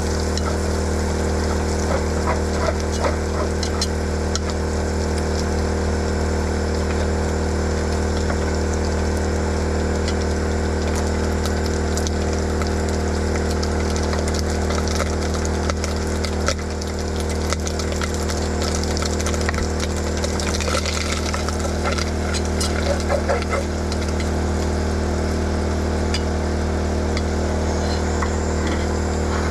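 Food frying in a greasy pan, a steady crackling sizzle, over a constant low mechanical hum from a running engine such as a generator.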